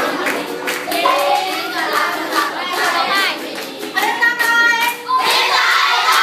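A group of students singing a song together to ukulele strumming, with hand claps on the beat. A few seconds in they hold long notes, then the singing grows fuller and louder.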